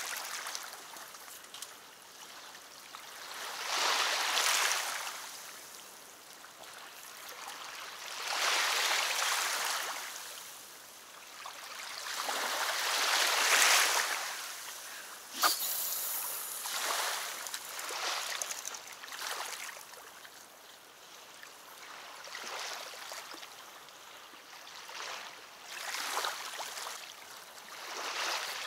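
Small waves lapping at a reedy river shore, coming in slow swells every few seconds, with one sharp click about halfway through as a fishing rod is cast.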